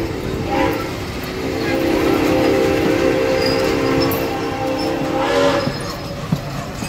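Steam train's chime whistle sounding a chord: a short blast at the start, then a long blast of about four seconds, over the rumble and clatter of passenger cars rolling past on the rails.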